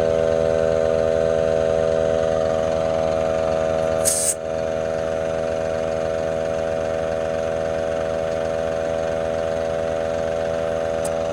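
Small portable air compressor running steadily as it fills a tractor tire, with a steady hum and a droning tone, over the tractor engine running. A brief sharp hiss about four seconds in, after which the sound is a little quieter.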